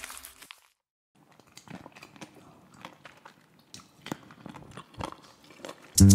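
A man chewing food, with faint, irregular crunching clicks. Music fades out at the start, and loud music comes in right at the end.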